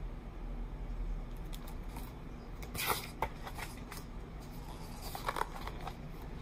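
Pages of a hardcover picture book being turned and the book handled: short paper rustles and soft clicks, about three seconds in and again a couple of seconds later.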